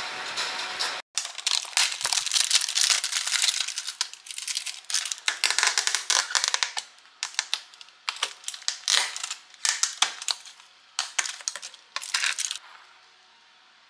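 Plastic food tub of ground coffee being handled and its lid worked off: crackling plastic and many sharp clicks and taps, denser in the first few seconds and scattered later, stopping near the end.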